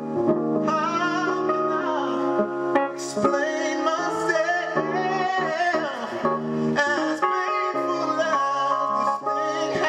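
Male singer singing a slow, soulful melody with bending runs and held notes, over sustained instrumental chords.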